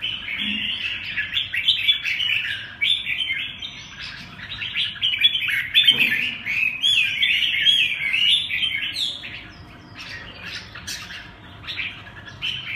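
Several caged red-whiskered bulbuls singing and calling at once, quick warbled phrases overlapping almost without a break, thinning out near the end. A single knock about six seconds in.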